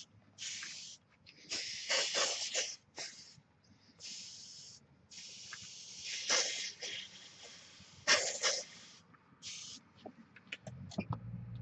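Preval aerosol spray gun hissing in about seven bursts of varying length, some brief and one lasting about two seconds, as leather dye is sprayed in light coats onto a leather seat.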